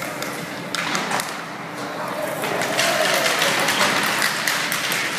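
Ice hockey rink sounds: short sharp clacks of sticks, puck and skates on the ice over a hall full of spectators' voices. The voices grow louder about halfway through.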